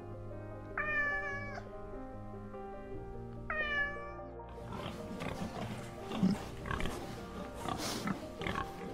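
A domestic cat meowing twice, each meow short and falling slightly in pitch, then a pig rooting in the dirt with irregular grunts and snuffles, all over background music.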